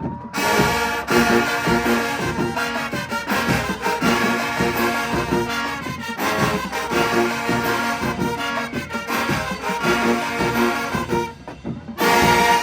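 College marching band playing: a brass section of trombones and trumpets over drums with a steady beat, swelling to a loud full chord near the end.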